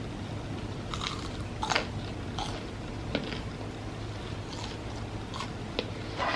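A person biting into and chewing crispy fried food, with a crunch every second or so, the loudest about a second and a half in and at the end, over a low steady hum.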